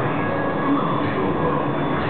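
Steady tyre-workshop background noise: a dense, even din with no single sound standing out.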